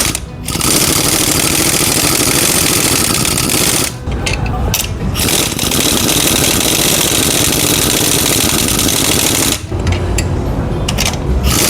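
Pneumatic impact wrench running in long rattling bursts, with short breaks about four seconds and nine and a half seconds in, driving the screws of a butterfly coil-spring compressor to compress the spring on a rear shock absorber.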